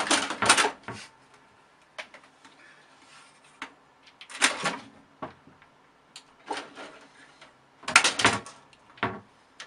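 A cat leaping up and scrabbling its claws against a computer tower case, in several short bursts of knocks and scrapes, the loudest cluster near the end.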